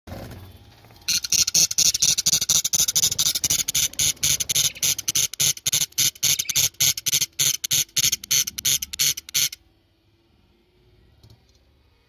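Budgerigar chicks in the nest begging: a loud, fast run of raspy, squeaky calls, about five a second. It starts about a second in and stops suddenly with a couple of seconds to go.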